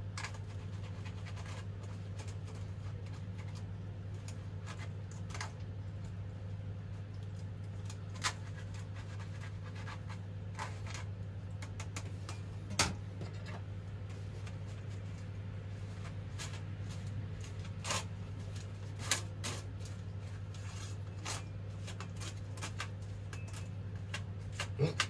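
A spoon scrapes and presses boiled azuki beans through a wire-mesh sieve over a stainless-steel bowl, mashing them for red-bean paste, with an occasional sharp metal click against the sieve or bowl. The beans are a little too firm, which makes slow going. A steady low hum runs underneath.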